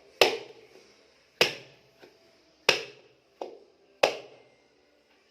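A lump of nastar cookie dough being slammed down hard onto a surface: four loud slaps about every 1.3 seconds, with a lighter one between the third and fourth. The dough is slammed to work it soft so that it won't crack.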